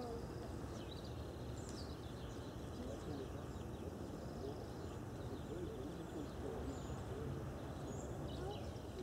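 Outdoor ambience: a steady low rumble of background noise with small birds chirping now and then, a few chirps about a second and a half in and again near the end.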